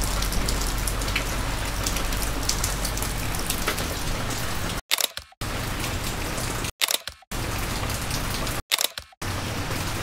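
Steady rain falling, with separate drops ticking through it. The sound drops out briefly three times.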